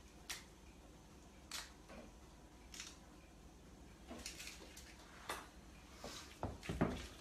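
Quiet food-preparation handling sounds: scattered soft clicks and rustles as lettuce leaves are laid on a tortilla. Near the end a mixing bowl is handled, with a low knock and a few clicks.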